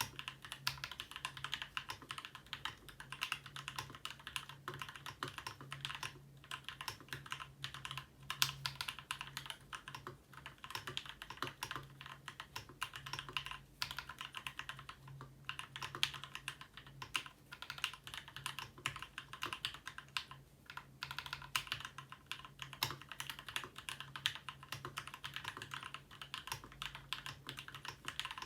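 Steady, fast typing on a Ramaworks M60-A seq2 60% mechanical keyboard with linear Gateron Black Ink switches, modded with Krytox 205g0 lube, switch films, lubed screw-in stabilizers and an internal dampener, under GMK keycaps: a dense run of muted clacks.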